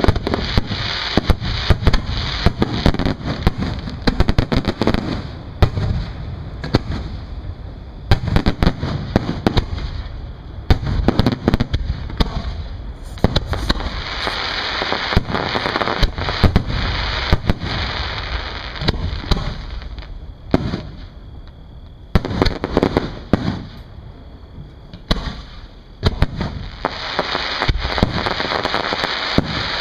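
Aerial fireworks display: shells bursting in a rapid, unbroken string of bangs. The bangs thin out for a few seconds about two-thirds of the way through, then come thick again near the end.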